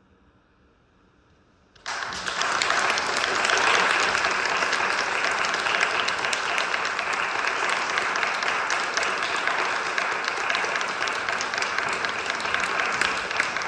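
Near silence, then audience applause starts suddenly about two seconds in and continues steadily.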